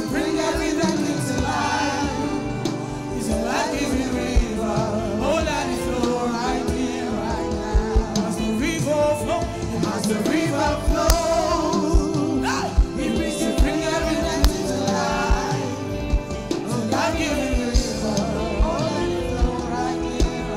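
Live gospel worship music: a group of singers with a lead voice, pitch wavering in sung runs, over a band with bass guitar and sharp percussion hits.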